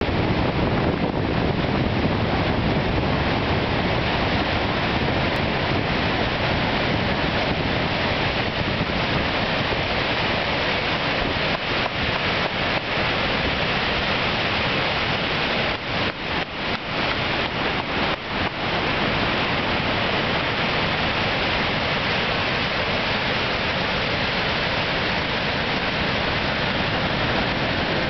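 Niagara Falls: the steady roar of the falling water, a dense rushing noise that holds even, with a few brief dips in level a little past the middle.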